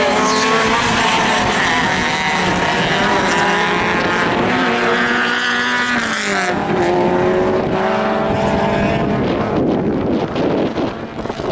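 Rallycross car engines revving hard under racing load, the pitch climbing and then dropping at each gear change. The engines fade near the end, with wind on the microphone.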